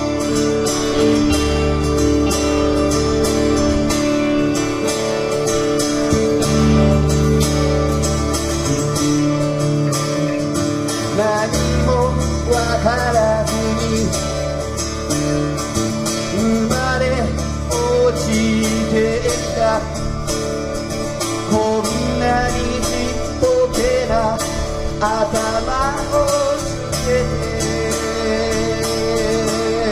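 A live band with electric guitars, bass guitar, keytar and drums playing a folk-style song. Held chords open it, and a singing voice comes in about eleven seconds in.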